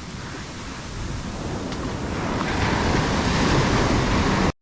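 Ocean surf washing in on a beach, growing louder over the first few seconds and then holding steady, with wind buffeting the microphone. It cuts off abruptly near the end.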